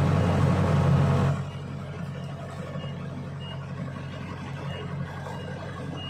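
Diesel engine of Kubota farm machinery running steadily, louder for the first second or so and then settling to a lower, even level.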